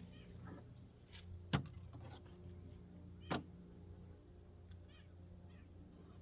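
Two sharp knocks about two seconds apart over a low steady hum, with a few faint short chirping calls in between.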